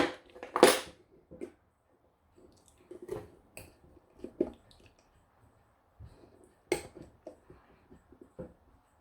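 Irregular clinks and knocks of small hard objects being handled and set down on a work surface, with the sharpest knocks right at the start and just under a second in, and lighter taps scattered after.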